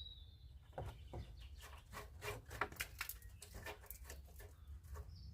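Faint, irregular clicks, taps and light knocks of hands working at a plastic car body panel, the Trabant 601's front wing, while it is eased away from the body.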